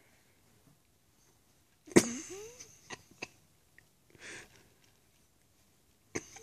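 West Highland White Terrier sneezing in short, sudden bursts: a loud one about two seconds in, a softer one just after four seconds and another near the end, with a few light clicks between them.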